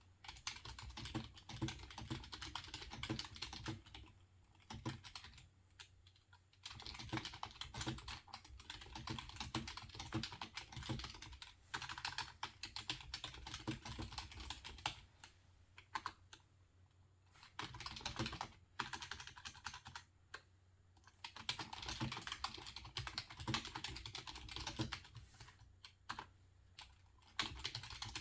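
Typing on a computer keyboard: quick runs of key clicks, stopping for a few seconds now and then before starting again.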